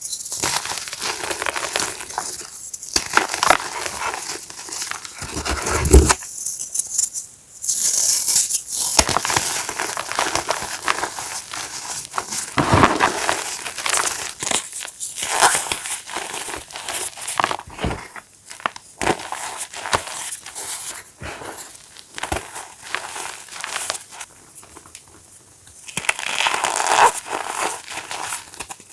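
Blocks of reformed gym chalk being crushed and crumbled by hand: dense, crisp crunching full of small crackles, with a few brief pauses between squeezes.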